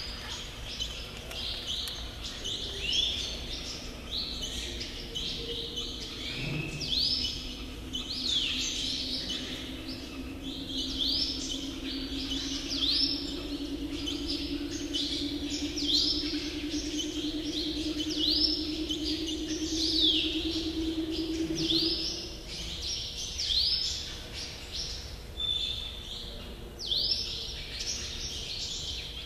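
Small birds chirping: short high calls repeated about once a second. A low hum comes in about six seconds in, rises slightly in pitch, and stops about twenty-two seconds in.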